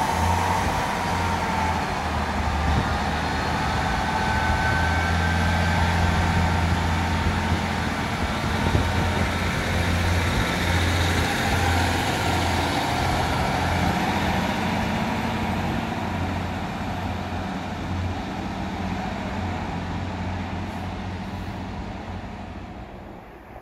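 East Midlands Railway Regional diesel multiple unit pulling out of the station past the platform, its underfloor diesel engines running steadily under power. A thin whine shows in the first couple of seconds, and the sound fades away over the last few seconds as the train recedes.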